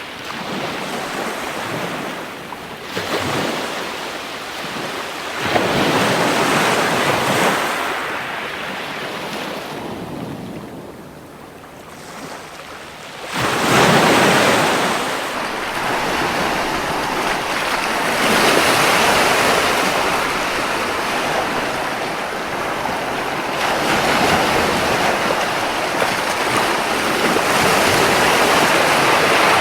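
Ocean surf breaking on a beach: the wash swells and recedes in repeated surges. A quieter lull about ten seconds in is followed by a louder break.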